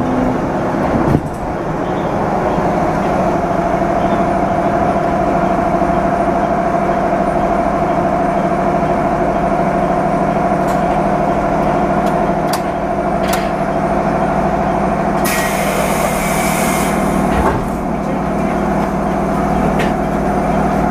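Inside the cab of a 213 series electric train standing at a station, a steady hum from its running equipment. There are a few sharp clicks, and about fifteen seconds in a hiss of released compressed air lasts about two seconds.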